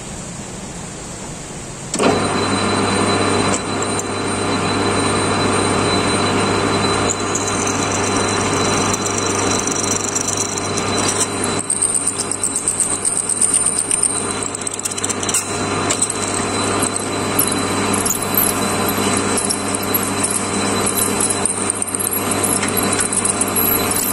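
Steady hiss of heavy rain, then about two seconds in the Kent USA lathe is switched on and runs with a steady hum. A 13.8 mm twist drill in the tailstock bores into the spinning ST60 steel bar, and a high squeal comes and goes through the middle as the drill is forced into the medium-hard steel.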